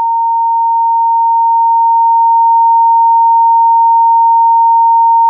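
A long, steady censor bleep: a single pure high tone replacing abusive speech.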